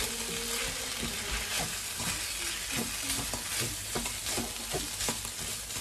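Freshly added beef mince frying and sizzling in a frying pan with onions and spices, while a spatula stirs it with frequent short scrapes and taps against the pan to keep it from sticking.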